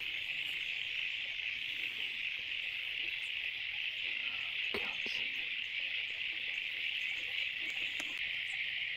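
Steady, high-pitched chorus of insects at dusk, with a faint tick or two about five seconds in.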